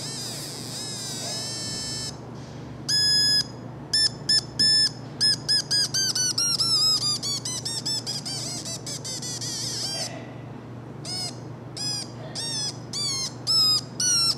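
Drawdio noisemaker on a paintbrush giving buzzy electronic beeps whenever the brush touches the wet paint line that a finger also touches. The pitch is set by the resistance of the paint between brush and finger. Short stop-start beeps are followed by a stretch around the middle where the pitch slides steadily down, then more short beeps at changing pitches.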